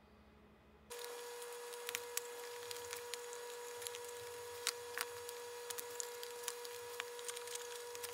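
Thin wooden dovetailed box panels being pressed together by hand: scattered small clicks and wood-on-wood taps as the joints seat. A steady hum comes in suddenly about a second in and runs under them.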